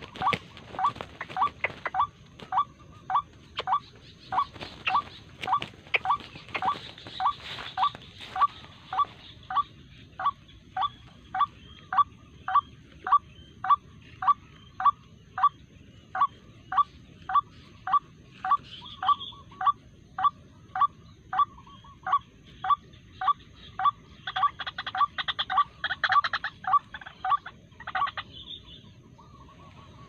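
White-breasted waterhen giving its repeated 'kruak' call, about two short notes a second in a very even rhythm, stopping near the end.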